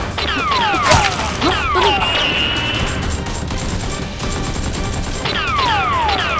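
Added action sound effects: groups of quick falling whistles near the start and again near the end, with one sharp bang about a second in and a brief steady high tone soon after.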